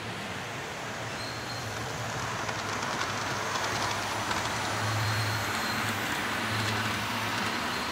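HO-scale model train running along the layout track: a low motor hum that swells and fades, with faint ticking from the wheels over a steady background hiss.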